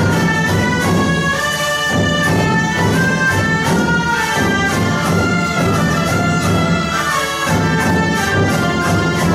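Orchestral music with brass playing sustained notes over a steady low beat.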